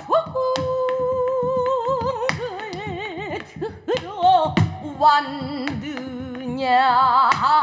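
Pansori singing: a woman's voice stretches one line into long held notes that waver slowly and widely, sliding between pitches. A buk barrel drum is struck a few times underneath.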